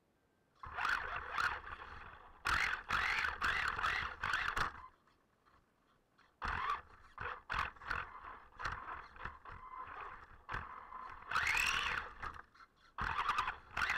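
Electric RC car's motor whining in repeated throttle bursts, its pitch rising and falling, heard close from a camera mounted on the car, with clicks and knocks from the car over the deck boards. It starts about half a second in and drops out almost to silence between bursts.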